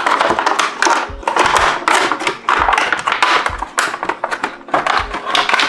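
Clear plastic blister packaging crinkling and crackling in irregular bursts as the electric toothbrush is worked out of it. Background music with a low beat about once a second runs underneath.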